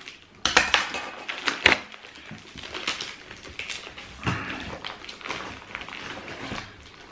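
Trainers and their packaging being handled: a few sharp clicks and knocks in the first couple of seconds, then softer rustling and light taps.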